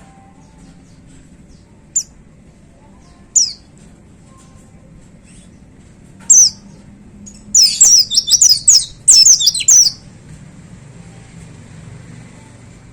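White-eye (pleci) singing: a few single sharp high chirps, then, a little past the middle, about two seconds of loud, rapid, high falling notes, the 'tembakan' (shooting) burst that keepers prize.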